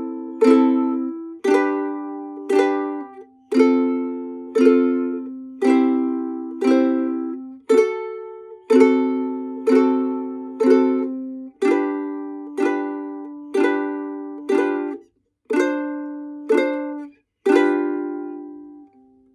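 Chords strummed on a small plucked string instrument, about one strum a second, each ringing and dying away, played as a simple tune; the last chord fades out near the end.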